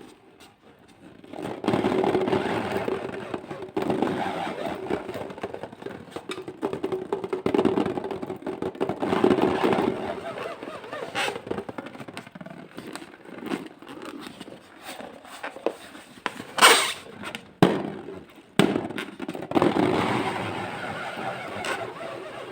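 Balloons and slime being handled and squeezed, giving a dense run of crackling, squishing and popping noises, with one sharper, louder crack about 17 seconds in.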